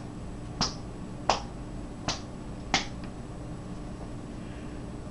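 Four sharp finger snaps in an even, slow rhythm, about one every three-quarters of a second, stopping about three seconds in; after that only a faint steady hum remains.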